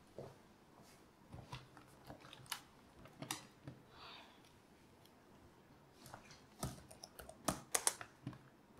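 Handling of a laptop at a desk: scattered light taps and clicks, then a quick run of louder key clicks on the laptop keyboard near the end.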